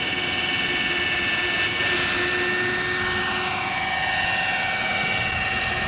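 Radio-controlled model aircraft flying overhead: a steady, high motor whine made of several held tones, with a fainter tone sliding down in pitch partway through.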